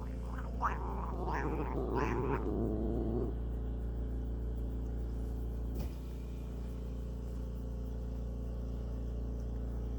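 Domestic cat making an odd, rough vocal noise for about three seconds. A low steady hum follows.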